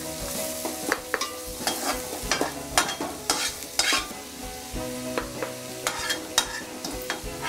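A metal spatula and spoon scraping and clinking irregularly against two pans while sliced onions fry in oil with a light sizzle.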